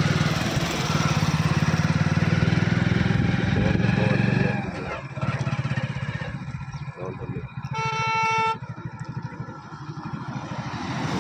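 Motorcycle engine running steadily under road and wind noise, then easing off and quieter about four and a half seconds in. A vehicle horn honks once, briefly, about eight seconds in.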